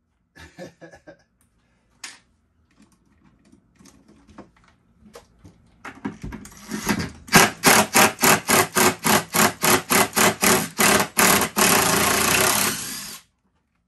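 Cordless drill-driver backing out a screw from a cabinet toe plate, its motor run in quick pulses about three a second and then held steady for a little over a second before it stops. Faint clicks and handling sounds come before it.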